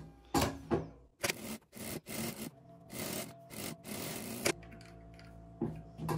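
Fabric strips rustling and sliding over each other and across the sewing table as they are lined up under the sewing machine's presser foot, in a series of short swishes.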